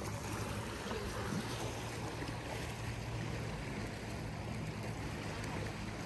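An engine running steadily with a low, even hum, under a continuous rushing hiss.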